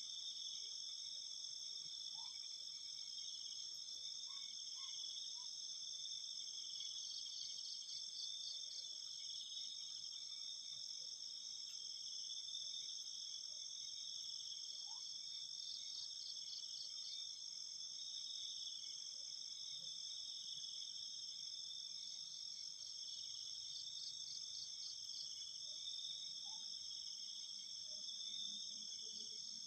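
Night chorus of crickets and other insects, several steady high trills at once, with a pulsing trill that comes back about every eight seconds and a few faint short chirps.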